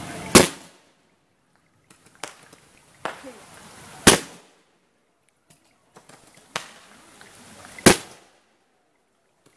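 Aerial firework shells bursting: three loud bangs about four seconds apart, with fainter pops in between.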